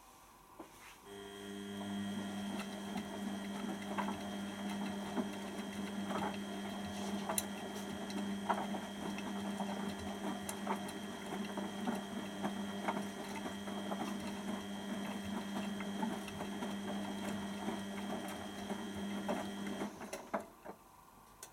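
Beko WTB741R2A washing machine's drum motor starting about a second in and turning the drum through a wash tumble with a steady hum and whine, the wet load sloshing with scattered clicks, then stopping abruptly about a second and a half before the end.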